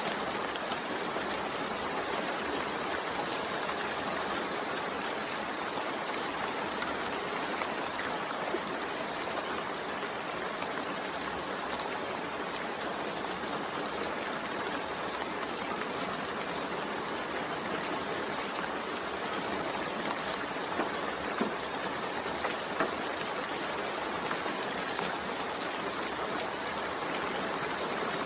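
Steady rain falling, an even hiss without change, with a few sharper drops standing out now and then.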